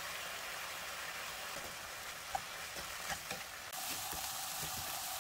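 Ground pork sizzling in hot oil in a frying pan as it is stir-fried, with a few short clicks of the spatula against the pan in the middle. The sizzle steps up slightly in level a little past halfway.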